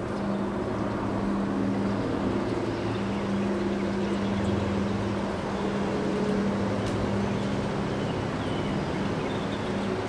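Gusty wind blowing steadily through bare trees, with a steady low hum underneath.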